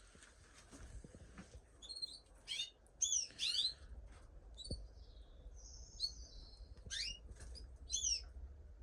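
Caged canaries chirping: short, quick sweeping call notes from several birds in a bird room, with one longer thin note about six seconds in.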